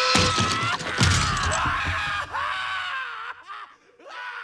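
People screaming and yelling in long, wavering cries, with a couple of heavy thuds in the first second or so.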